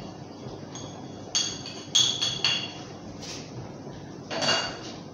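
Metal spoon clinking against a small ceramic plate as ground spices are pushed off it: four quick ringing clinks in the middle and one more, louder and duller, near the end.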